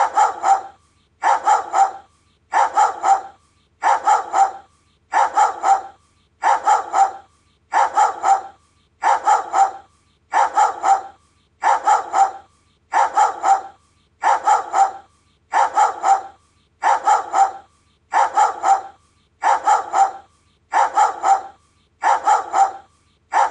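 A Doberman barking in quick groups of two or three deep barks, the groups repeating evenly about every second and a half like a loop.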